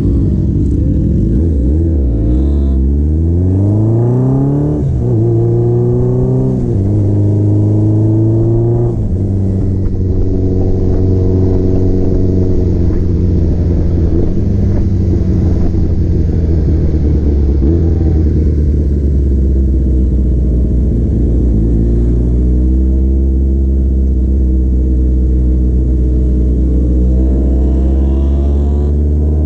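Motorcycle engine accelerating up through the gears, its pitch climbing in each gear and dropping sharply at each shift. It then holds a steady cruise before pulling up in pitch again near the end.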